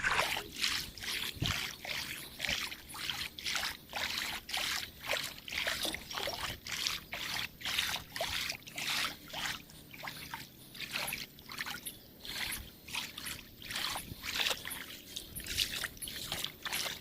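Footsteps wading across a shallow river, splashing and sloshing with each stride at a steady walking pace of about two steps a second.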